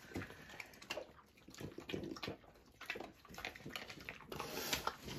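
A dog eating cake off a plate: irregular wet smacking, licking and chewing clicks.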